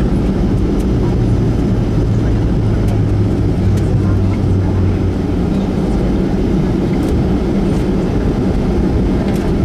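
Boeing 737 cabin noise while taxiing after landing: the jet engines at idle and the airframe rumbling over the taxiway, a steady low rumble with a low hum on top through the first half.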